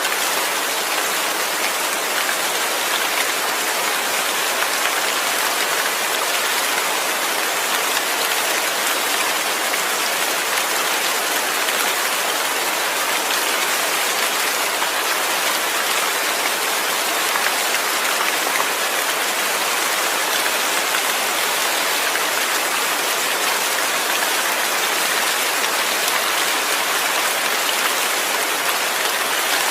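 Steady rain falling, an even hiss of many drops without a break or any single loud impact.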